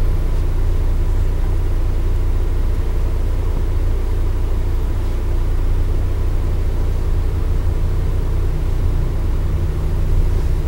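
Steady low rumble of a moving van's engine and road noise, heard from inside the passenger cabin.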